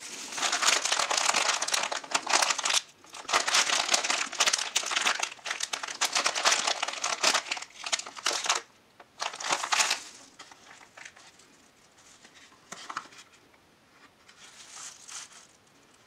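Plastic packaging crinkling and rustling as it is handled: loud for about ten seconds with short pauses, then only faint occasional rustles.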